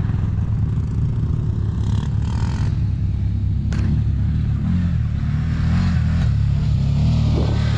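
Side-by-side UTV engine running with a steady low drone, its pitch shifting as it drives over dirt; a single sharp click about four seconds in.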